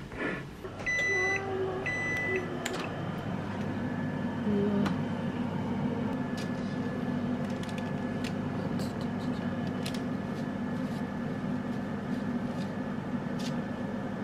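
Two short electronic beeps from an oven about a second apart, then the oven's fan running with a steady hum, with a few light clicks.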